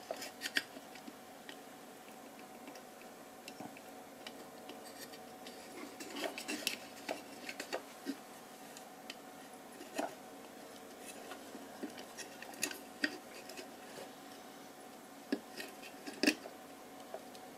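Sparse small metallic clicks and taps as a soldering iron and fingers work at the wire joints of an LED chip in an aluminium floodlight housing, unsoldering its leads. A faint steady hum runs underneath.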